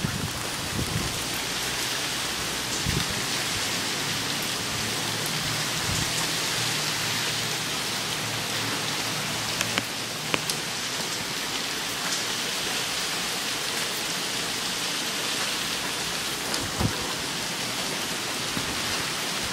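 Heavy hurricane rain falling steadily onto a flooded street, a constant hiss with scattered sharper drips close by.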